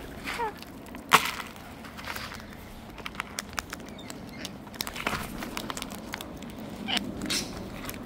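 Cockatoos and lorikeets pecking and cracking seeds on a plastic lid: scattered sharp clicks and cracks, the loudest about a second in, with a short falling bird chirp near the start.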